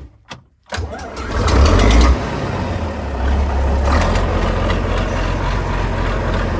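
John Deere 4650 tractor's six-cylinder diesel engine starting on a newly fitted 12-volt battery: it cranks and catches within about a second, flares up briefly, then settles into a steady idle. It is a quick, clean start.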